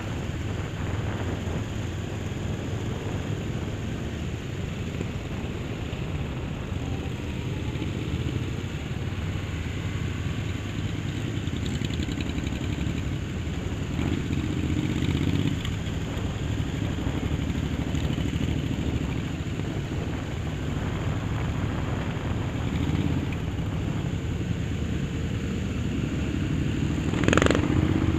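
Honda CB500 motorcycle engine running steadily at road speed, with wind noise on a helmet-mounted camera. About a second before the end, a brief loud sound sweeps sharply up in pitch.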